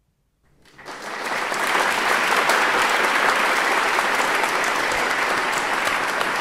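AI-generated crowd applause, a dense steady clapping that fades in over about the first second, produced from a prompt for a crowd screaming in a concert hall and coming out as applause instead.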